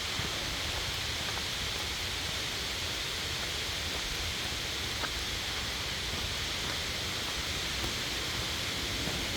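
Steady rush of a mountain valley stream, with a few faint clicks over it.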